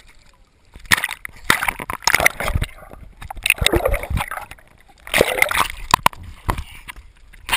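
Water splashing and bubbling around a camera dipped in and out of the water by a swimmer. The splashing starts about a second in and comes in irregular bursts, with a muffled bubbling stretch underwater around the middle.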